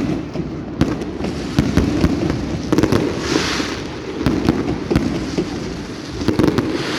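Aerial fireworks going off in a steady run of sharp bangs, about one or two a second, with hissing crackle swelling about three seconds in and again near the end.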